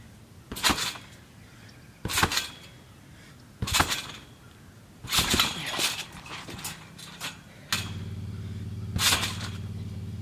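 Backyard trampoline bouncing: the mat and springs thump and creak with each landing, about every one and a half seconds, five times in all. A steady low hum starts near the end.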